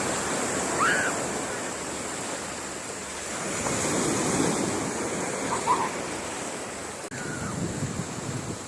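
Sea waves washing onto a beach in a steady surging wash, swelling about a second in and again around four seconds.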